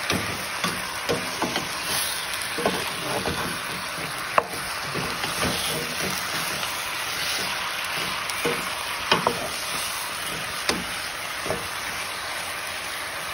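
Strips of raw chicken breast sizzling in a little lard in a frying pan while a spatula stirs them, with irregular scrapes and knocks against the pan; the sharpest taps come about four seconds in and twice around nine to eleven seconds.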